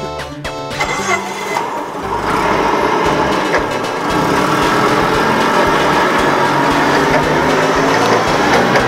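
Propane forklift engine running as the forklift drives, growing louder about two seconds in and then holding steady. A little music is heard in the first second.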